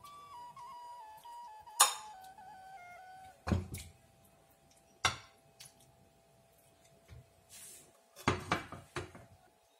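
Metal ladle clanking against a black wok as coconut-milk curry is scooped out: a few sharp knocks, the loudest about two seconds in and a cluster near the end. Background music plays a melody of single notes stepping downward during the first three seconds.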